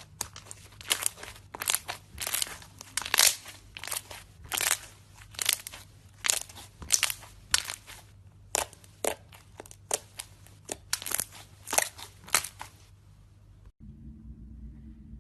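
Slime being pressed and squeezed by hand, giving crunchy crackling bursts one or two times a second. They stop about 13 seconds in, and a steady low hum follows.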